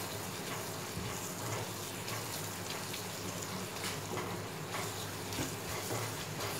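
Scrambled eggs frying in oil in a pan over raised heat: a steady sizzle with fine crackling, and a spatula stirring and scraping through the eggs.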